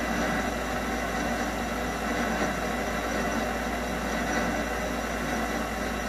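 MX-210V mini lathe running steadily, its chuck spinning as a tool turns a rubber workpiece.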